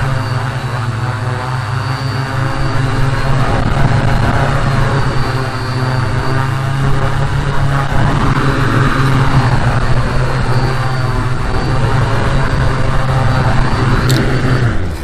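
Small quadcopter's four brushless motors and guarded propellers running in flight: a steady buzzing hum with a swoosh that sweeps up and down as the props change speed. It stops abruptly at the very end.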